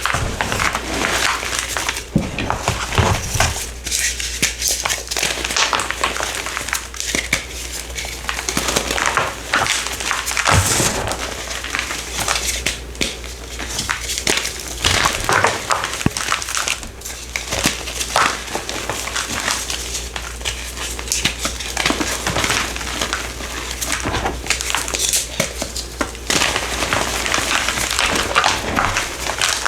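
A purple crumbly powder block being crushed and crumbled by hand, giving continuous crunching and crackling with many small crisp snaps.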